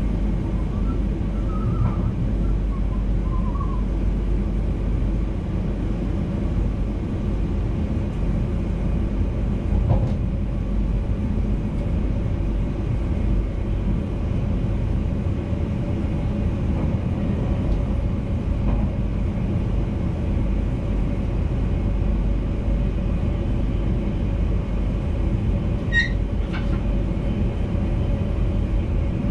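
Steady low rumble of a VIRM double-deck intercity electric train running on the track, heard from inside the driver's cab. A short high-pitched tone sounds once near the end.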